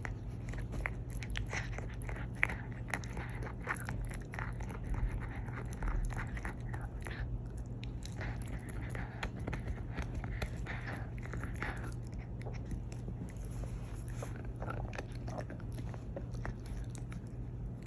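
Teething Boston terrier puppy gnawing on a bone: quick irregular clicks and crunches of teeth on the bone, mixed with snuffly, breathy panting.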